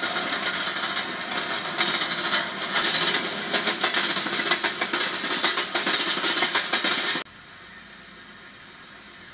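Freight train rolling past, its wheels clicking over the rail joints in a rushing noise. The noise cuts off suddenly about seven seconds in, leaving a steady low hiss.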